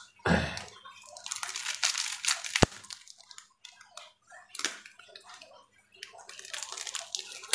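Plastic wrapping crinkling and rustling in the hands as a small packet is handled and opened, with a dull thump just after the start and scattered light clicks.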